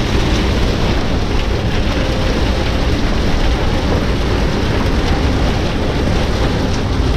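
Cab of an intercity coach driving through heavy rain: a steady low rumble of engine and tyres on the wet highway under a constant hiss of rain and spray.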